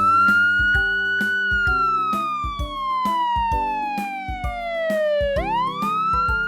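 A wailing siren over upbeat children's music: the siren rises quickly, holds, falls slowly for about four seconds, then rises sharply again near the end.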